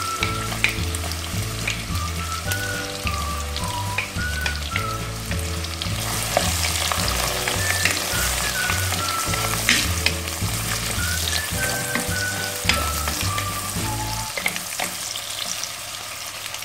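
Sliced onions sizzling in hot oil in a pot, stirred now and then with a wooden spatula that clicks against the pot. Background music with a bass line and melody plays over it and stops near the end.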